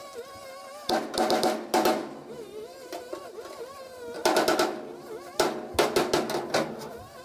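Panel-beating hammer striking the sheet-steel rear panel of a 1955 VW panel van from behind to knock out dents, in three or four quick flurries of blows. Music plays faintly underneath.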